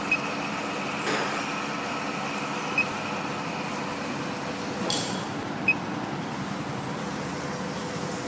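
Automatic pipe-cutting machine humming steadily at standby, with three short high beeps from its controller keypad as keys are pressed, and a couple of light clicks.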